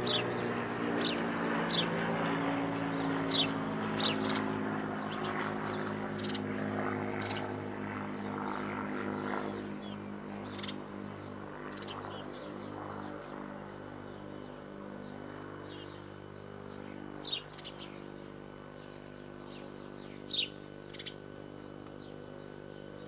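Short, sharp, high bird chirps, several close together at first and then a few scattered ones, likely from a great tit at the nest box. Under them a soft sustained music bed fades away over the first half.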